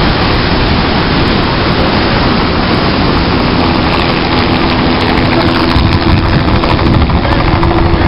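Big ocean waves breaking and whitewater churning: a loud, steady rush of surf, heavy in the low end.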